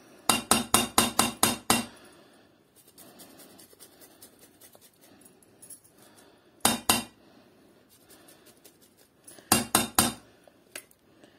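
Kitchen utensil knocking rapidly against cookware while food is prepared, in three bursts: about eight quick strikes at the start, two or three near the middle, and about six near the end.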